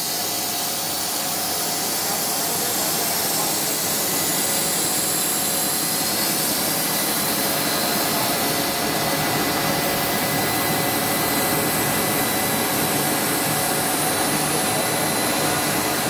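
Cast film extrusion line running: a steady, even hiss of air with a few thin, steady whines from its motors and blowers.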